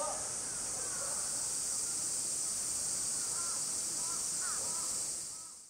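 Steady, high-pitched chorus of summer cicadas, with a few faint short calls over it. It fades out near the end.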